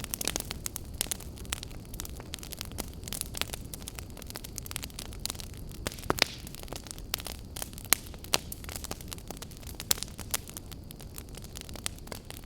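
Campfire burning: a steady low rumble of flames with irregular sharp crackles and pops of burning wood.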